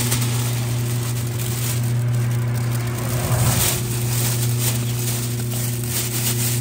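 Electric groundbait mixing machine running, its motor humming steadily while it churns aged groundbait with pressed barley, with a grainy rustle of the bait tumbling.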